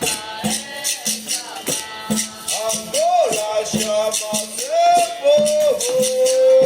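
Capoeira roda music: a rhythmic shaken caxixi rattle over berimbau and percussion strikes, with voices singing long, sliding notes that hold on one pitch near the end.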